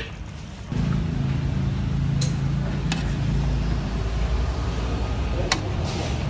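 A motor running steadily with a low hum, coming in abruptly under a second in, with a few sharp clicks over it.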